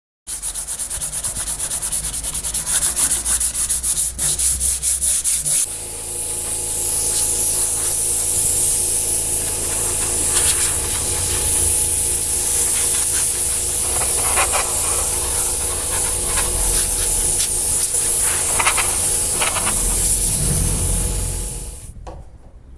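Sanding on a VW Kombi's step-well bodywork. For about five seconds there are rapid rubbing strokes, then a power sanding tool runs steadily with a strong high hiss and cuts off shortly before the end.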